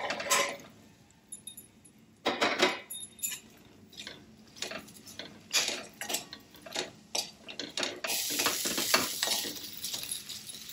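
Vegetables tipped off a steel plate into a hammered steel kadai, then a steel ladle clinking and scraping against the pan in a quick run of knocks as they are stirred. From about eight seconds in, a steady sizzle of the vegetables frying in oil.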